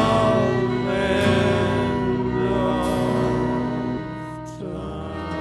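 Live band music with a man singing long, wavering held notes; the music gets quieter about four seconds in.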